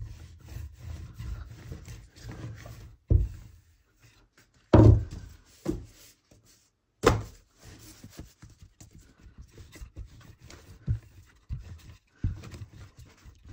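Rolling pin rolling out a sheet of byrek dough on a work surface: an uneven low rumble of the pin going back and forth, with a few louder thunks in the middle.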